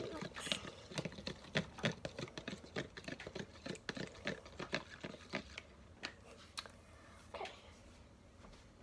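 Small plastic baby spoon stirring and scraping a thick, wet flour-and-lotion paste in a plastic bowl: a rapid run of clicks and scrapes, several a second, that thins out to a few after about six seconds.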